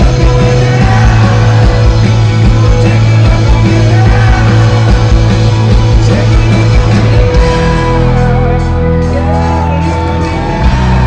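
Live rock band playing loud through a festival PA: electric guitars, bass and drums with singing, heard from the crowd. About two-thirds of the way in the drums drop away, leaving held chords under the vocals.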